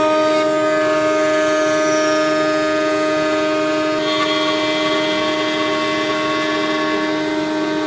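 CNC router spindle running and cutting the inside curve of an arched teak door frame: a loud, steady high-pitched whine with cutting noise under it. The upper tones shift about halfway through.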